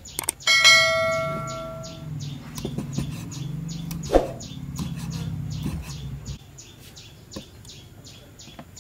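A mouse-click and bell-chime sound effect from a subscribe-button overlay, the chime ringing for over a second. Then a few knocks of a cleaver chopping dried squid on a wooden chopping block, the loudest about four seconds in, with repeated high chirps behind.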